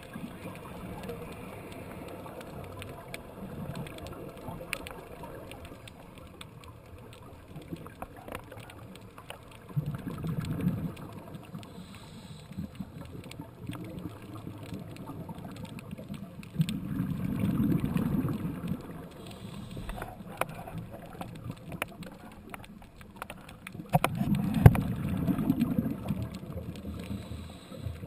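Underwater sound of a scuba diver's exhaled bubbles rising from the regulator: three low bubbling rumbles about seven seconds apart, each lasting a second or two, over a steady hiss with scattered sharp clicks.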